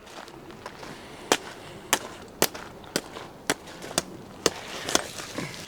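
A series of sharp knocks or clicks, about two a second, starting about a second in, over faint outdoor background noise.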